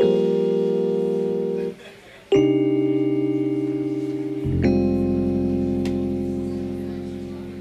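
Electric piano sound from a Roland stage keyboard playing three slow sustained chords, each with a light wavering; a low bass note joins about four and a half seconds in under the last chord, which is left to ring and fade out.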